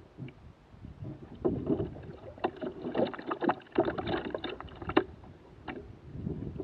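Hobie trimaran's polyethylene hull scraping and knocking on the gravel shore as the boat comes aground. A run of irregular scrapes and knocks, busiest from about a second and a half in until about five seconds in.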